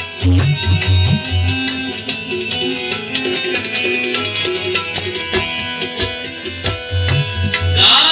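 Indian folk-style music with tabla and drums keeping a steady rhythmic beat under a sustained melody.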